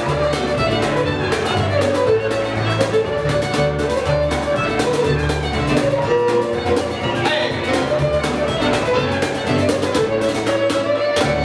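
Folk band playing a lively fiddle tune: bowed fiddle carrying the melody over plucked upright bass notes, with a steady cajon beat and keyboard.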